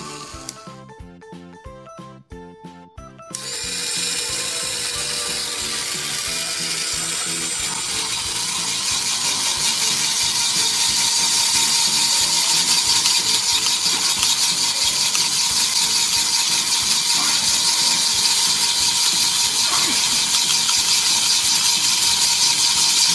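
Homemade drill built from a 200 RPM high-torque geared DC motor, running and boring into a plaster wall: a steady motor whine over the grinding of the bit. It starts about three seconds in and gets louder as the bit bites in.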